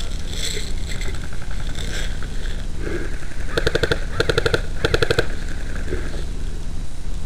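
Airsoft electric gun firing three short rapid-fire bursts in quick succession about halfway through, each burst about half a second of fast clicking shots.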